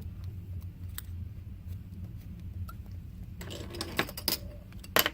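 Small metal parts of a lock being handled during disassembly: light clicks and rattles that become busier about three and a half seconds in, with a few sharper clicks near the end, over a low steady hum.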